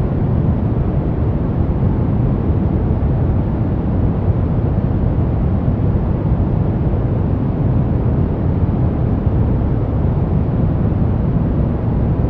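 Continuous noise for relaxation, sold as white noise, that is steady and unbroken with a deep rushing sound heaviest in the bass and dull in the treble.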